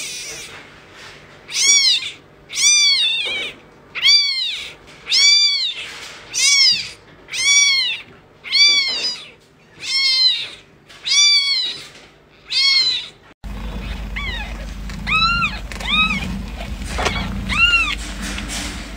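A young kitten meowing over and over, about one arched, rising-then-falling meow a second. About two-thirds of the way through, it cuts to fainter meows from a tiny newborn kitten over a steady low hum.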